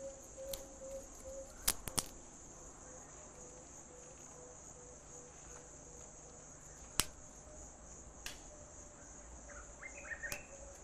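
A steady, high-pitched drone of insects in tropical woodland. A few sharp clicks are scattered through it, and a brief chirping bird call comes near the end.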